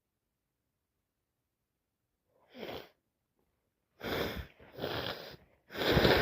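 A person with a heavy head cold sneezing. After a quiet start there is a short breath in about two and a half seconds in, then three loud sneezing bursts over the last two seconds, the last the loudest.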